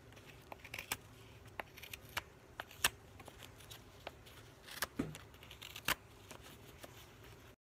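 Knife blade whittling a small block of wood, shaving off its corners: faint, irregular snicks and short scrapes as chips are cut away. The sound stops suddenly near the end.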